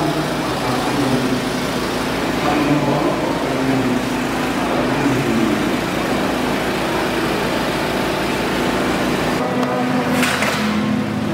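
An engine runs steadily with a low, even rumble, and cuts off abruptly near the end.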